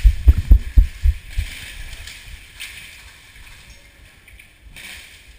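A quick run of dull, low thumps over the first second and a half, from the camera being jostled as the player moves. The thumps fade into a faint hiss.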